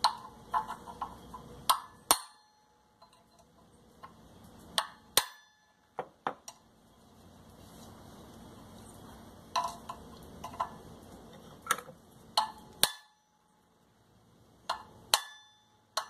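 Small hammer tapping a flat steel bar held against the casing of an Electrolux vacuum cleaner motor, knocking the housing apart to get at the armature. About fifteen sharp metallic taps at an irregular pace, often in pairs.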